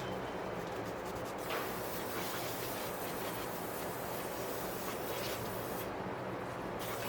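Scratchy rubbing and hissing as brake dust is cleaned off a car's wheel hub. A brighter, steady hiss runs through the middle of the stretch, with a few faint strokes in it.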